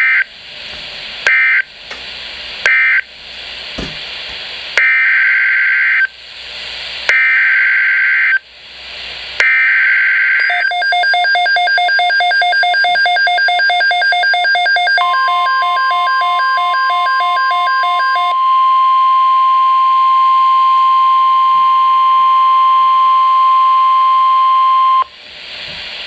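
Midland WR-100 weather radio relaying a NOAA Weather Radio alert: a string of short warbling SAME data bursts, three short ones followed by three longer ones, then the radio's own rapidly pulsing alert beep from about ten seconds in. About fifteen seconds in, the steady 1050 Hz NWS alert tone joins the beeps and runs on alone for about ten seconds before cutting off, signalling a new flash flood watch.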